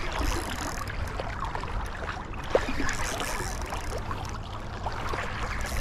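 Steady rush of flowing river water, with a low wind rumble on the microphone.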